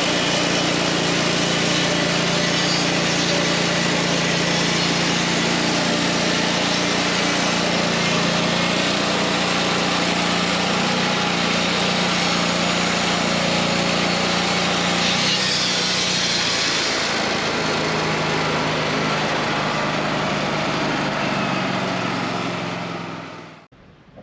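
Wood-Mizer LT40 Wide band sawmill running steadily, its engine and band blade going together, then cutting off abruptly near the end.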